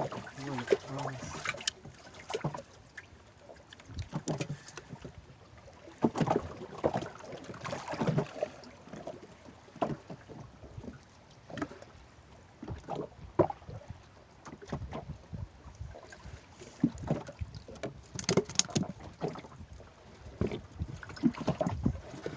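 Water slapping against the hull of a small open fishing boat at sea, in irregular splashes and knocks, with wind on the microphone.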